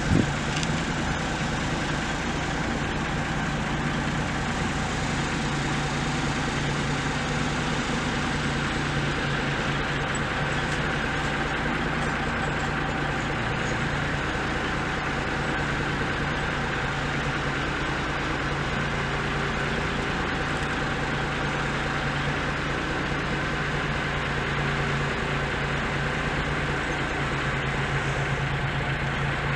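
Ford F550 utility truck's 6.8-litre V10 engine idling steadily.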